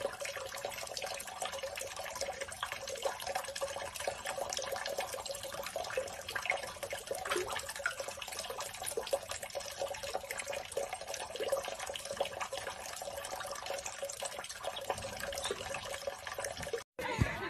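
Water lapping and splashing faintly in a filled kitchen sink as ducklings paddle about in it: a quiet, steady wash of small splashes and drips.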